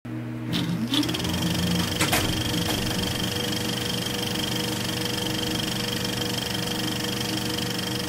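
Film projector sound effect: a steady mechanical whir with a fast rattle. A rising whine in the first second as it gets going, and a few clicks around two seconds in.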